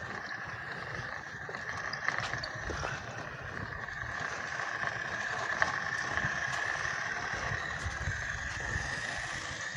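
Battery-powered remote-control toy truck driving, its electric motor giving a steady high whine that swells slightly in the middle.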